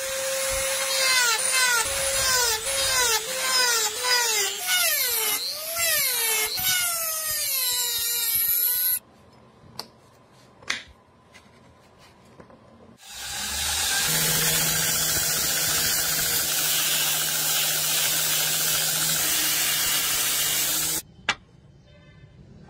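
Handheld rotary tool spinning a polishing wheel against small metal parts: a high whine whose pitch dips and recovers again and again as the wheel is pressed on. It stops for a few seconds with a few clicks, then runs steadily again for about eight seconds before cutting off.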